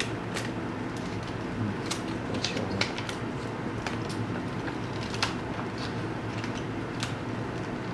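A thin plastic screen-protector film sheet being handled and peeled from its backing, giving scattered crackles and ticks at irregular intervals over a steady low hum.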